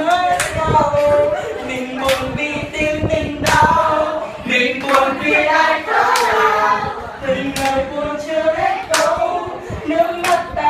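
A group of young people singing together with no clear words while clapping along, one sharp clap about every second and a half.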